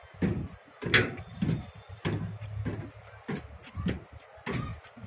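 A series of irregular knocks and clatters, roughly two a second, the loudest about a second in.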